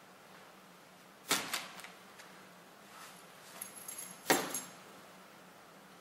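Small personal items dropped one at a time onto the floor: two sharp knocks about three seconds apart, each with a quick smaller rattle after it, and a brief jingle of keys just before the second.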